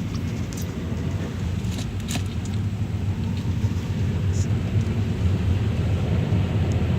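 Steady low rumble of a Mazda3 driving, engine and road noise heard from inside the cabin, gradually getting louder as the car picks up speed.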